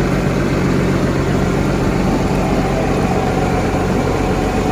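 A fishing boat's engine running steadily with a low, even hum.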